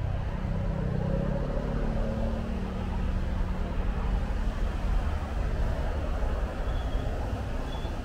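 Steady city traffic on rain-wet roads: a continuous rush of tyres and engines, with one vehicle's engine hum standing out in the first few seconds. A few faint high chirps come near the end.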